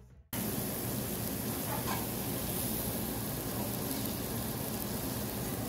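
Steady sizzling hiss of food frying, starting abruptly a moment in, with a faint click about two seconds in.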